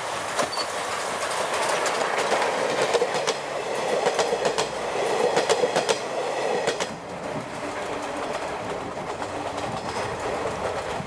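Steam-hauled passenger train running past, its wheels clacking over rail joints over a steady rush of running noise. From about seven seconds in the clacking stops and a quieter, even running noise carries on.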